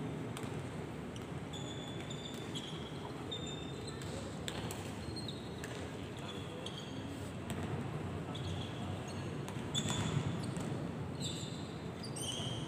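Volleyball court noise in a large hall: sneakers squeaking on the court floor, with a ball thudding a few times over low crowd chatter.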